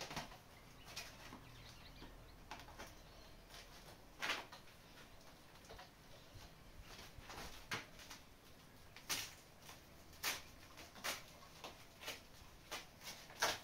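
Irregular crinkles and sharp clicks of plastic packaging being handled and pulled off a new e-bike frame, about a dozen scattered snaps, the loudest around four seconds in and again near nine and ten seconds.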